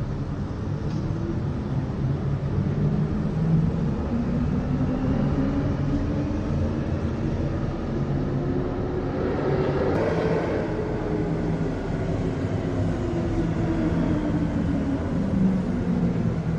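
Sci-fi spacecraft engine sound effect: a steady rumble with a hum whose pitch rises toward the middle, swells with a hiss about ten seconds in, then falls away, like a craft passing by.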